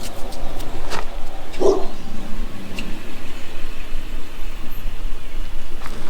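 Magnetic drill running, boring a hole through the truck frame, with a steady motor hum and a few knocks; a thin high whine joins about halfway through.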